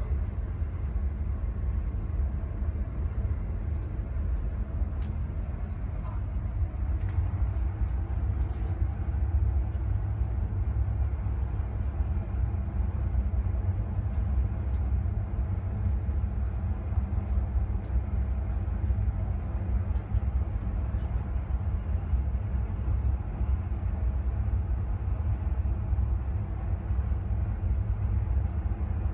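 Steady low rumble of wind and machinery at sea, with the drone of a search-and-rescue helicopter hovering off a container ship.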